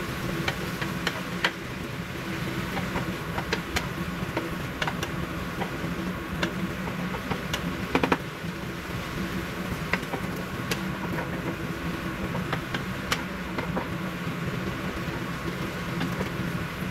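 Sliced mushrooms and onions sizzling in oil in a nonstick frying pan, with irregular clicks and scrapes of a wooden spatula stirring them against the pan, the loudest a double knock about 8 seconds in. A low steady hum runs underneath.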